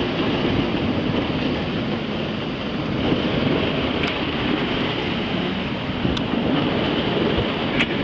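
Wind and waves aboard a sailing yacht under way: a steady rushing noise of wind and sea.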